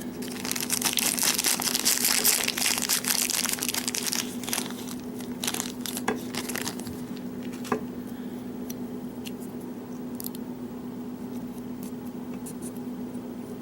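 Crinkling rustle of packaging being handled, dense for the first four or five seconds, then thinning to scattered small clicks and crackles, over a low steady hum.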